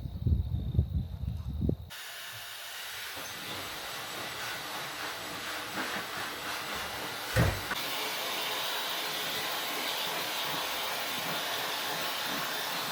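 A pet blow dryer blowing air at a dog's wet coat with a steady hiss, switched on about two seconds in after some low rumbling sounds. A short thump comes about halfway through.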